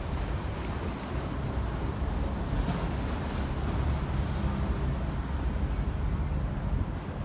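Wind buffeting the phone's microphone as a steady, flickering low rumble, over the faint hum of city traffic.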